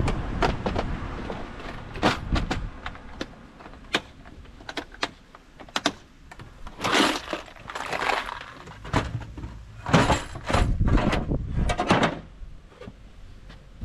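Irregular clicks, knocks and short rattles of items being handled in a van's storage racking, with several louder clattering bursts in the second half.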